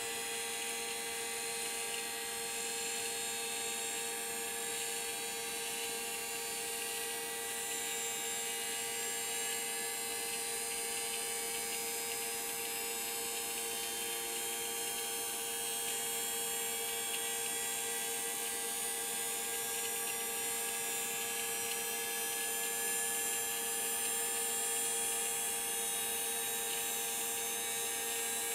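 Boeing 737 vertical gyroscope's rotor spinning up after power-on: a steady electrical hum under a high whine that climbs slowly in pitch as the rotor gains speed toward its running speed.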